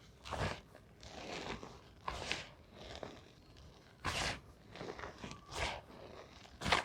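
Reformed gym chalk being crushed, with a series of separate dry crunches about one a second, the sharpest right at the end.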